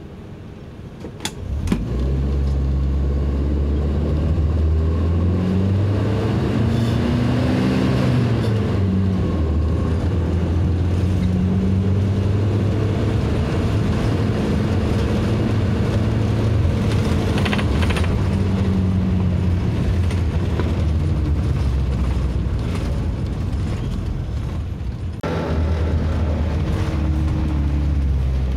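A bus engine heard from inside the passenger cabin. It pulls away about two seconds in, then runs with a deep hum whose pitch rises and falls several times as the bus accelerates through its gears. Near the end it eases off briefly, then picks up again.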